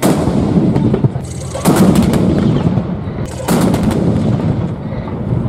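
FH-70 155 mm towed howitzers firing: three heavy booms, at the start, about a second and a half later and again about two seconds after that, each trailing off in a long rumbling echo.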